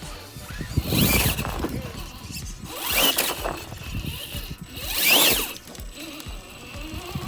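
RC rock crawler's electric motor whining up and back down in three short throttle bursts about two seconds apart, each with a rushing scrape.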